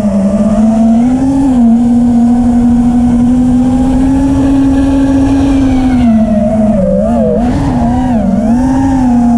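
FPV quadcopter's electric motors and propellers whining close to the microphone, with a rough rush of air beneath. The pitch holds fairly steady, then dips and climbs several times in the second half as the throttle changes.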